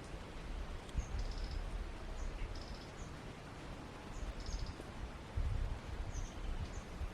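Small birds chirping, short high calls repeated every second or so, over a low uneven rumble.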